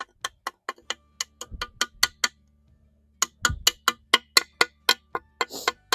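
Rapid, evenly spaced sharp clicking, about five clicks a second, with a brief pause just before the middle, over a faint low hum.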